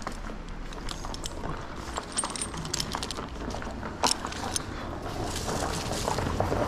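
A tree climber's metal gear clinking and rattling as he moves about, with scattered clicks and a sharper knock about four seconds in.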